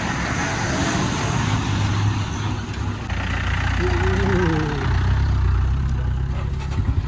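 Motor vehicle engines running with a steady low drone, with a brief wavering tone about four seconds in.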